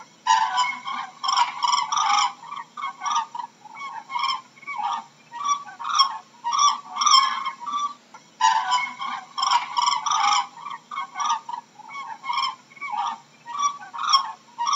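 A group of cranes calling, many short overlapping calls in quick succession. The calls are densest in the first two seconds and again a little past halfway, and sparser in between.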